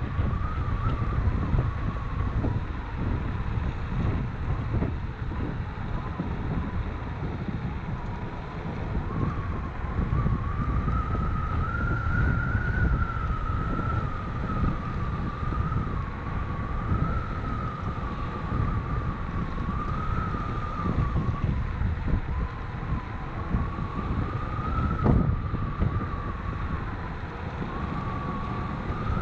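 Wind buffeting the microphone of a moving electric scooter, with a steady high motor whine that slowly rises and falls in pitch as the speed changes. A single short click near the end.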